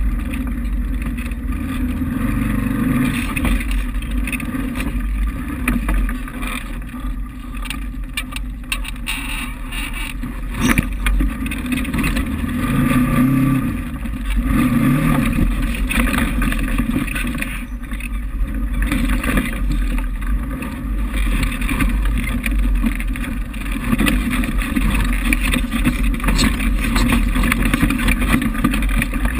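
Polaris RZR XP 1000 side-by-side's parallel-twin engine running under varying throttle, its drone swelling and easing. About a third of the way in comes a run of sharp knocks and rattles as the machine goes over rocks.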